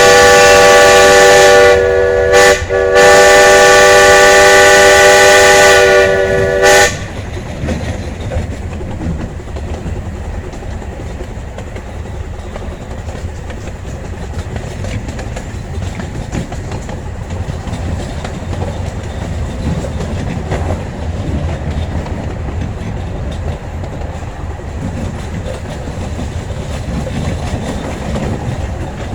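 Steam locomotive #7 'Oak' blowing a long chime whistle of several notes together, dipping briefly twice and cutting off about seven seconds in. After that, the steady rumble and clickety-clack of the train running along the rails.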